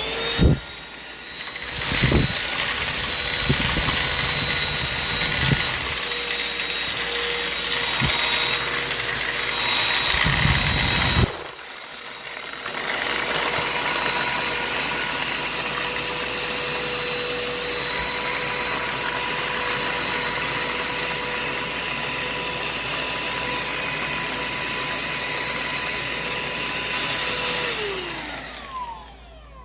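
Shark UltraCyclone cordless handheld vacuum running with a steady high whine, with cereal pieces clattering through it in the first part. The sound drops sharply for a moment about a third of the way through, then runs steadily again. Near the end the motor is switched off and winds down with a falling pitch.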